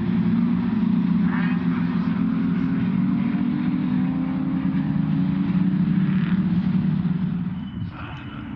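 Racing Jaguar Mk 1 and Mk 2 saloons' straight-six engines running hard through a corner as the cars pass close by. The engine note fades and drops in level near the end.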